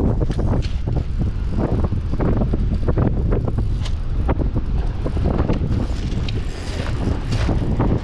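Wind buffeting the microphone, with irregular clicks and rustles of handling while a spinning reel is wound in on a retrieve.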